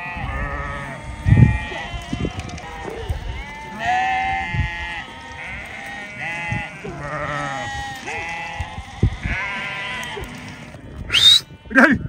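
A flock of sheep bleating, many calls overlapping one another, with a low thump about a second and a half in.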